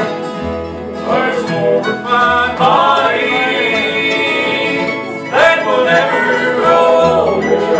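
Bluegrass gospel band playing live: strummed and picked acoustic guitars, mandolin and upright bass under sung vocal phrases.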